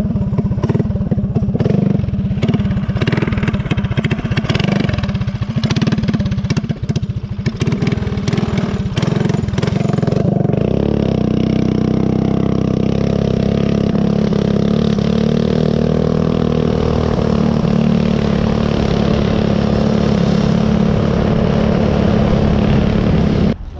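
Small single-cylinder dirt bike engine running hard under a rider, with wind buffeting the microphone for roughly the first ten seconds. It then holds a steady note at constant speed and cuts off suddenly near the end.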